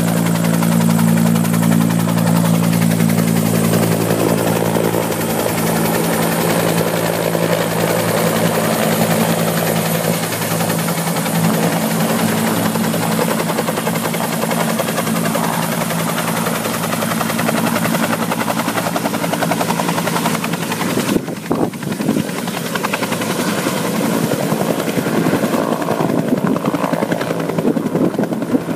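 Bell UH-1 "Huey" helicopter flying low past and hovering in to land, its rotor and engine loud and steady. About two-thirds of the way through, the steady low hum drops out, leaving a rougher, gusty noise.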